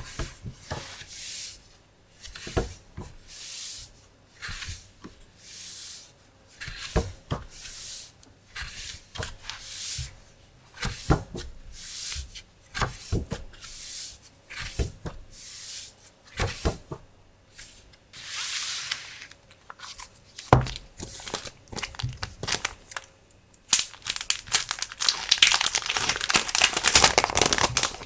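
Paper and plastic packaging handled by hand: repeated short rustles about a second long with light taps and clicks between them, then a longer stretch of continuous crinkling near the end.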